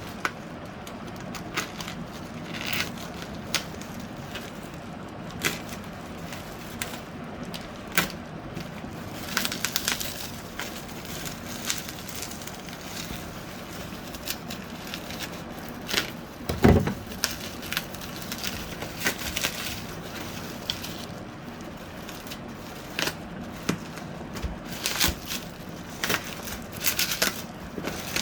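Plastic packaging crinkling and rustling in scattered bursts as a parcel is unwrapped by hand, with sharp clicks throughout and one louder low thump about two-thirds of the way through.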